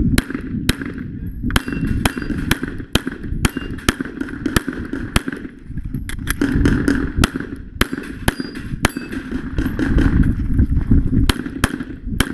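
Pistol shots fired in a USPSA stage run: about thirty sharp reports, mostly in quick pairs and short runs, with brief gaps between strings.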